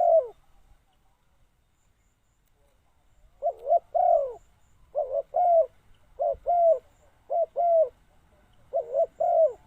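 Decoy spotted dove cooing: one coo ends just after the start, then after a pause of about three seconds come five short coos of two or three notes each, about a second apart.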